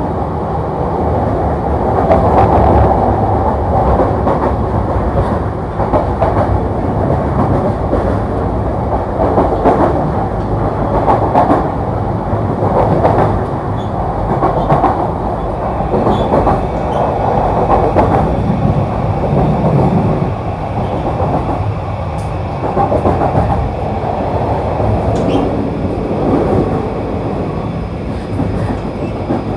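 E235-series electric train running on the rails, heard from inside the carriage: a steady rumble of wheels on track and running gear that swells and eases slightly.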